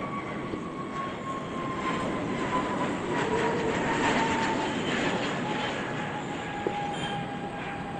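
Jet airliner passing close by: its engine whine slides slowly down in pitch while the engine noise builds to a peak about halfway through and then eases off.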